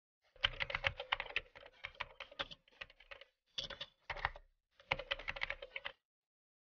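Bursts of rapid, light clicks, several runs of them with short pauses between.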